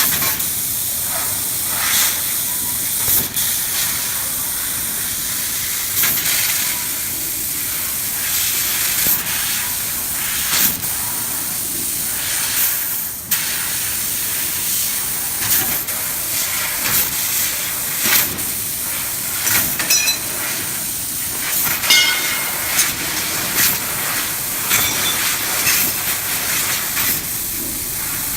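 1530FI fiber laser cutting machine cutting 1 mm stainless steel sheet at high speed: a steady hiss from the cutting head, broken by frequent short, louder bursts.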